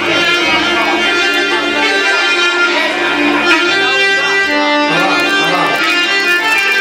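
Live band music: an instrumental passage with a held, reedy melody line over plucked strings.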